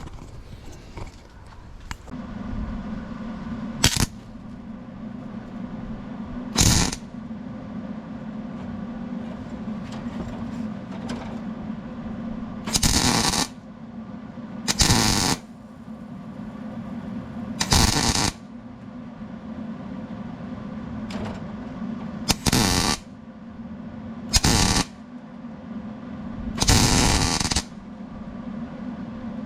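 Electric welder striking an arc in eight short welds, each a loud crackle lasting under a second to about a second, over a steady hum. The welds fuse a nut onto a broken-off bolt stub so the bolt can be turned out.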